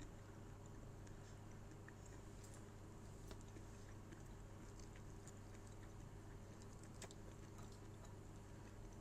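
Faint chewing of fried baby octopus, with small scattered mouth clicks, over a steady low hum.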